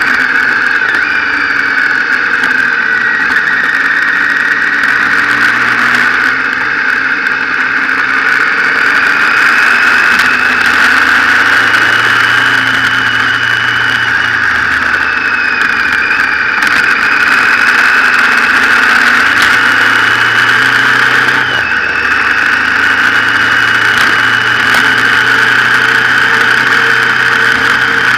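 Motorcycle engine running under way, heard from the bike itself with steady wind rush over the microphone. The engine note drops and picks up again several times, as with gear changes.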